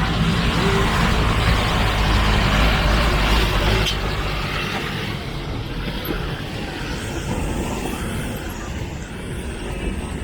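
A motor vehicle's engine running close by, a loud deep rumble for about four seconds that then fades into lower street noise.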